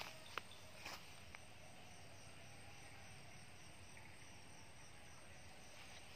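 A few soft footsteps on dry leaf litter in the first second or so, then a faint steady chorus of night insects such as crickets.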